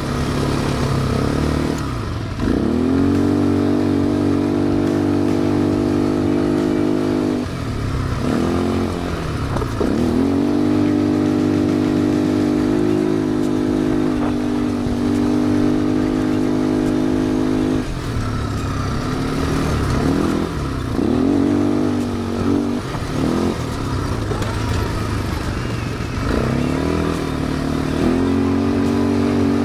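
Quad bike (ATV) engine under way, heard from the seat. The revs sweep up and then hold steady at a high pitch, ease off and pick up again about four times as the throttle is opened and closed through the laps.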